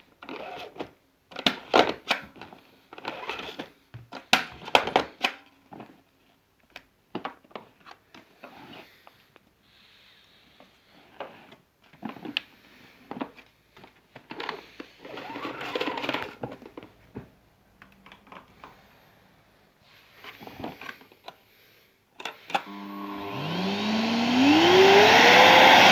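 Scattered clicks, knocks and rustling, then near the end the Electrolux ErgoEasy 2100 W vacuum cleaner switches on, its motor spinning up with a steadily rising whine and growing louder.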